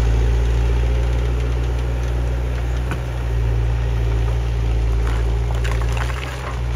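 Menzi Muck A61 4x4 walking excavator's diesel engine running steadily, with a few short clicks and knocks about three seconds in and again near the end.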